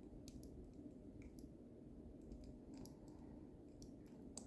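Faint, scattered small clicks of lever lock picks working inside a Squire 440 lever lock while it is held under torque.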